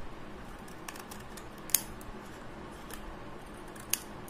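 Scissors snipping through a thin cardboard toothpaste box, cutting off its end flaps: a few sharp clicks of the blades closing, the loudest about two seconds in and another near the end.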